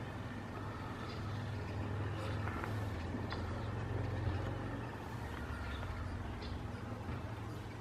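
Steady low rumble of distant road traffic, with a few faint, short, high chirps from a bird.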